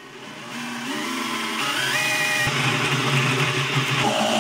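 Cordless drill spinning up over the first two seconds, then running steadily at speed as it drills into the metal bottom plate of a chicken plucker.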